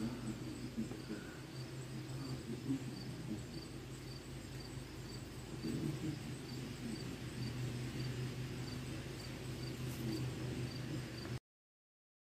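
A cricket chirping in an even rhythm, about two high chirps a second, over a steady low hum. The sound cuts out completely for about a second and a half near the end.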